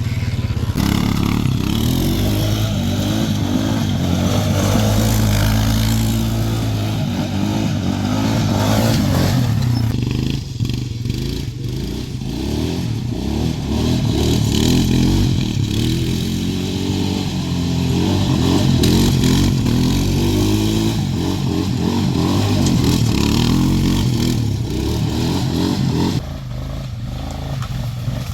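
Suzuki Vinson 500 ATV's single-cylinder four-stroke engine running under load as it is ridden, its pitch rising and falling with the throttle. It eases off about ten seconds in and again near the end.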